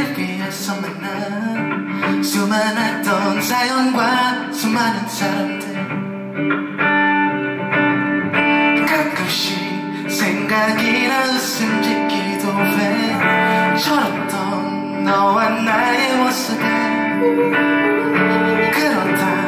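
Live song with a semi-hollow electric guitar playing through a break between sung lines, with some wordless singing over it.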